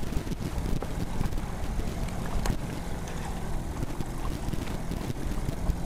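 Wind buffeting the microphone over the steady low hum of a boat's motor running while trolling, with a short sharp knock about two and a half seconds in.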